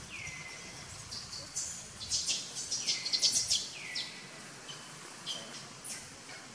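Birds calling: several high calls that slide down in pitch and then level off, with a burst of quick, sharp chirps about two seconds in, the loudest part.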